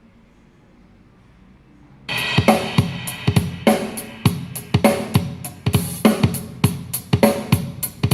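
BS 39B Bluetooth speaker playing music. After about two seconds of faint low hum, a drum kit comes in suddenly and keeps a steady beat of kick, snare and cymbals.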